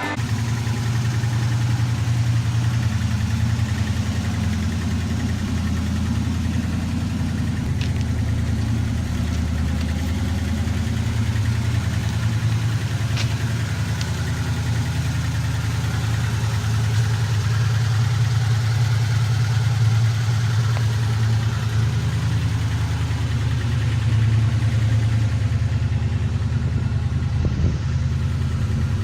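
Chevrolet 350 small-block V8 crate engine in a 1979 Camaro Z28, idling steadily with a deep, even rumble and no revving.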